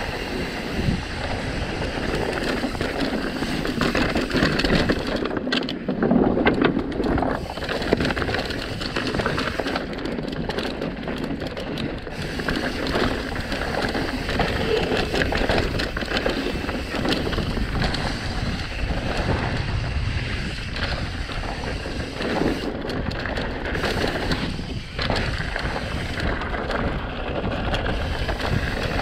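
Mountain bike descending a rough dirt trail at speed: tyres rolling over dirt and rocks and the bike rattling over bumps, with frequent knocks and steady wind noise on the microphone.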